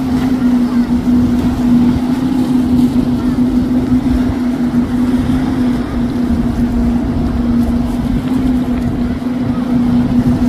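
Motorboat engine running at speed with a steady, unchanging drone, over the rush of wind and water.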